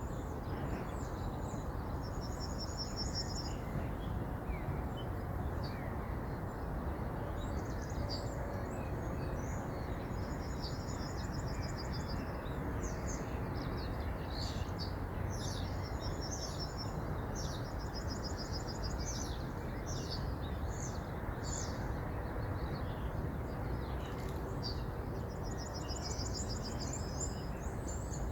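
Steady rush of flowing river water, with small birds singing over it: scattered high chirps and several rapid high trills.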